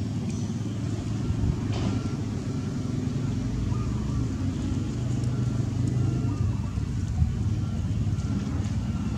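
Steady low engine rumble of a running motor vehicle, with a few faint clicks.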